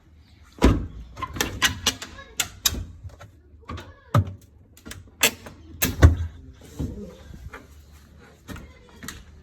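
An irregular series of sharp knocks and clanks, about a dozen, from hard objects being struck or handled; the loudest come about half a second in and about six seconds in.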